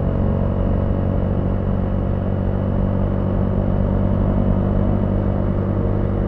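Motorcycle engine running steadily at a constant cruise, with no revving or gear changes.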